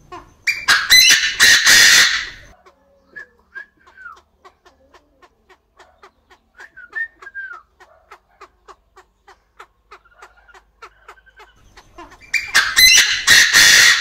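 Chinese francolin (đa đa) giving two loud, harsh calls of about two seconds each, one just after the start and one near the end. Between them runs a faint, fast, even ticking, about four ticks a second.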